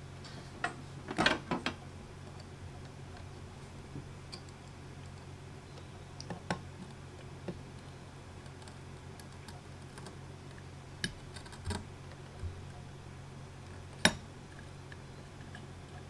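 Scattered small clicks and taps from a soldering iron, wires and a speed controller being handled on a metal tray while a motor wire is soldered on: a quick cluster about a second in, a few single taps later, and the loudest single tap near the end. A steady low hum runs underneath.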